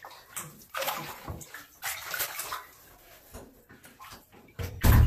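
Bath water splashing and sloshing in a tub in irregular bursts as a wet beagle puppy is washed and moves about, with a loud, deep thump near the end.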